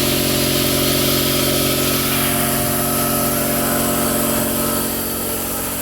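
Quincy 5 hp two-stage air compressor running steadily right next to the microphone, pumping up its tank, a loud, even machine hum with a hiss over it.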